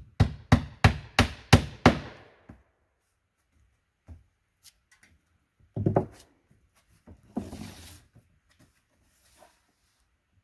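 Hammer blows in quick succession, about seven strikes in the first two seconds, nailing down roofing on a small shed roof. Later come a few knocks and a scraping rustle of someone moving across the roof.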